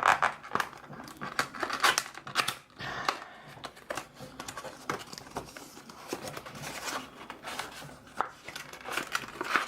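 A trading-card game box being opened by hand: plastic and cardboard packaging crinkling, tearing and rustling, with sharp clicks and scrapes. It is busiest in the first three seconds and softer after that.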